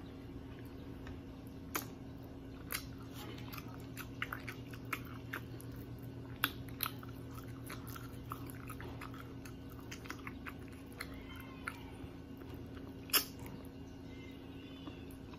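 Close-up mouth sounds of chewing fried tilapia: irregular small crunches and wet clicks, with one sharper click about 13 seconds in, over a low steady hum.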